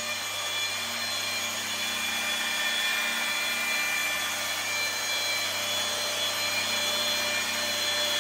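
Compact machine polisher with a foam pad running steadily against a car headlight lens, a constant motor whine. This is the polishing stage of a headlight restoration, after the lens was wet-sanded with 2000 and then 5000 grit, to bring it to a high gloss.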